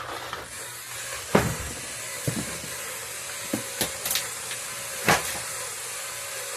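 Hard plastic 3D-printed models being shifted and turned by hand, giving several sharp knocks and clacks, two of them louder. Under the knocks there is a steady hiss with a faint wavering whine.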